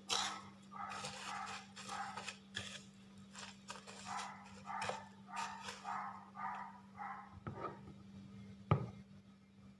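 A dog barking over and over, about two short barks a second, stopping about seven seconds in. A single sharp knock comes near the end, over a steady low hum.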